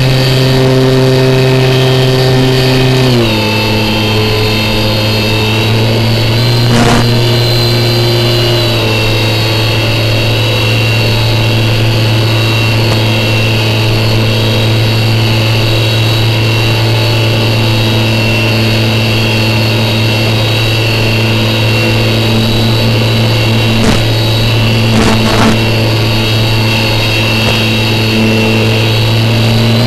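Electric motor and propeller of an RC flying wing running in flight, heard close up as a steady drone with a high whine. The pitch drops in two steps, about three seconds in and again near nine seconds, as the throttle is eased back. A few brief crackles come later.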